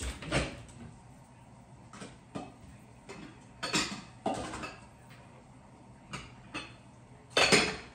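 Dishes and a kitchen cabinet being rummaged through for a dish: a series of separate knocks and clinks, the loudest clatter near the end.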